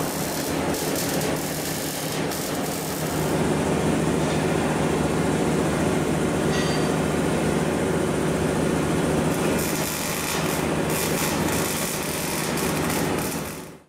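Electric arc welding on a steel truck frame: a steady, dense crackle with a low hum running underneath.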